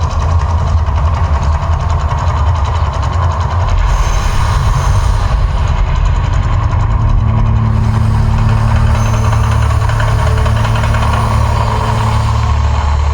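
Deep, steady rumble from the Mirage volcano eruption show, with faint held tones joining about seven seconds in.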